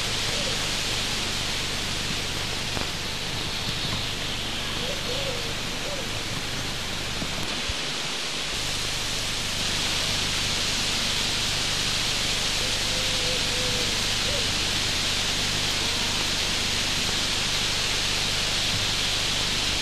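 A steady hiss that grows a little louder about halfway through, with a few faint, short pitched sounds.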